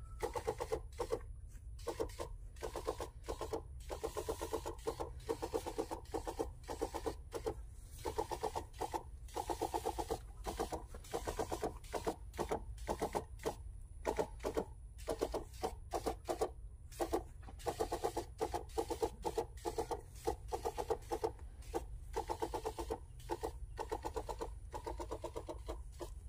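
Metal knapsack crop sprayer being pumped and sprayed: repeated clicks and short pitched creaks in a steady rhythm, several a second, with brief pauses, over a low rumble.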